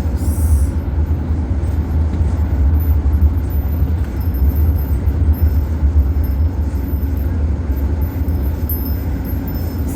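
Steady low rumble of road and engine noise inside a van's cabin while driving on the highway.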